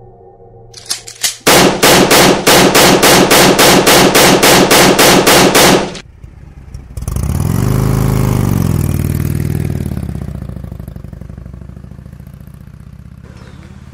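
Title sound effects: a fast, even run of loud strikes, several a second, that stops abruptly after about four seconds, then a deep whoosh that swells about a second later and slowly fades.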